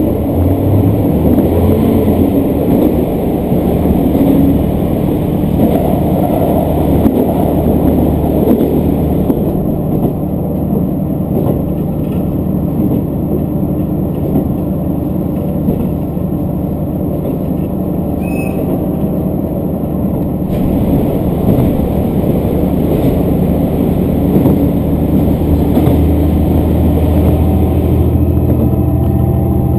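Diesel railcar running along the line, heard from inside the car: a steady engine drone with wheel-on-rail noise, and the engine note rising a little near the end.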